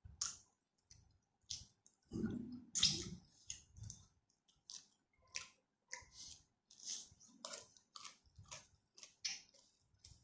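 Close-up eating sounds of a person chewing mouthfuls of rice and spicy stir-fried chicken: irregular short wet smacks and squelches. A louder, heavier bite comes about two to three seconds in.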